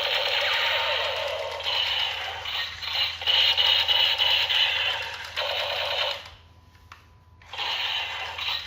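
Battery-powered toy gun's electronic sound effects playing through its small built-in speaker, a thin buzzing rattle in stretches. It stops for about a second and a half near the end, then starts again.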